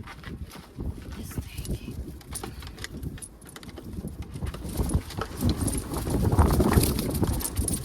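Strong wind buffeting the microphone, a gusty low rumble, mixed with irregular knocks and clattering. The wind grows louder from about the middle on.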